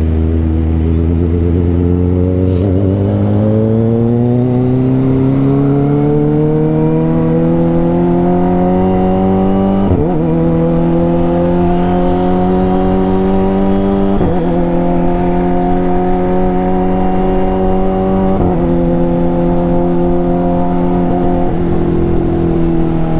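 Kawasaki ZX25R's 250 cc inline-four engine accelerating: the pitch climbs over the first several seconds, then there are three short gear changes about four seconds apart, and the engine eases off slightly near the end.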